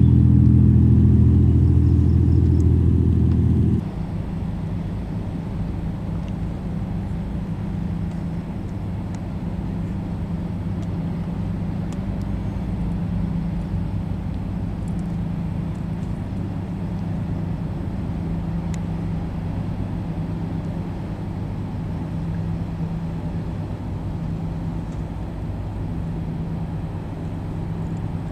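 High-speed passenger ferry engines droning as a ferry runs past, loud, with several steady low tones. About four seconds in the sound cuts abruptly to a quieter, steady engine drone from a second ferry passing.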